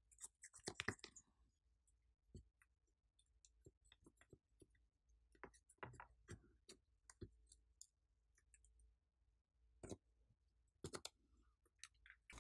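Faint, scattered clicks and scratches of fingernails scraping pressed eyeshadow out of a plastic makeup palette, coming irregularly.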